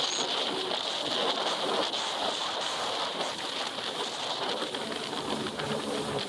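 Yamaha jet ski running at speed across a lake: a steady rushing of engine, water spray and wind on the microphone, with no separate engine note standing out.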